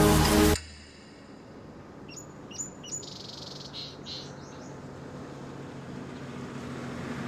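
Music cuts off under a second in, then birds chirp a quick run of short, high calls over a steady low outdoor hum.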